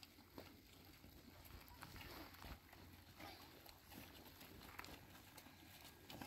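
Near silence with faint, scattered footsteps on stony ground, irregular light clicks.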